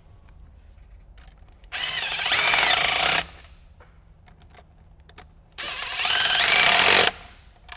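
Impact tool on a socket extension run in two bursts of about a second and a half each, its pitch rising as it spins up, tightening the stainless T-bolt clamp nuts on a silicone charge-tube coupler.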